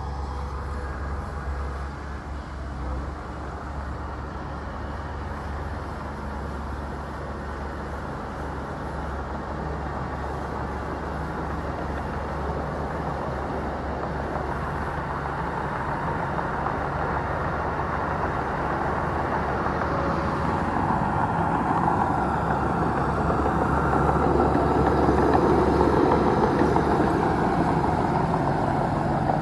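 Bulldozer's diesel engine running steadily with a low rumble, growing louder and busier in the second half as the machine works harder or comes closer.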